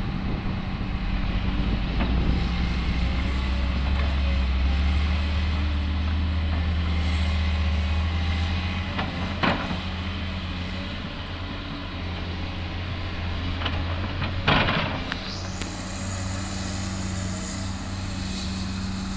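Diesel engine of a LiuGong 938E HD crawler excavator running with a steady drone, working harder for the first half as it digs and loads a dump truck, then easing off. A sharp knock about halfway through and a short hiss near three-quarters of the way.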